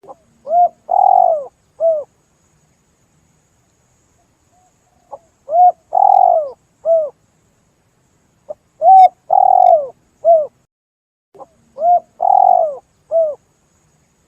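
Spotted dove cooing: four phrases a few seconds apart, each a quick lead-in note, a longer drawn-out coo and a short closing coo.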